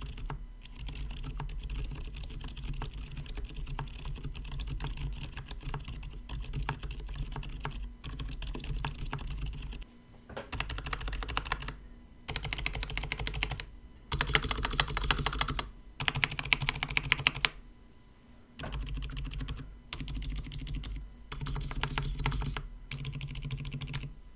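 Typing on a KBD67 Lite mechanical keyboard fitted with lubed silent tactile switches: muted, dampened keystrokes in quick runs broken by short pauses. The runs a little past the middle are louder and sharper than the rest.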